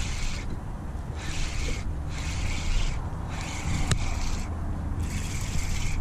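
Spinning fishing reel cranked in short spurts against a fish on the bent rod, each spurt a dry whirring rasp lasting about half a second to a second, with brief pauses between. A low wind rumble sits underneath, and a single sharp click comes about four seconds in.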